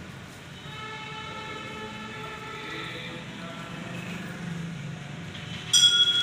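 Temple bell being struck: ringing tones swell about a second in and fade slowly over a couple of seconds, then a louder, sharp strike near the end rings on.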